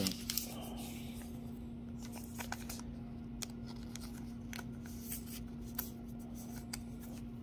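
Glossy chrome-finish trading cards handled by hand, with scattered short, soft clicks and slides of card stock against card and fingers. A steady low hum runs underneath.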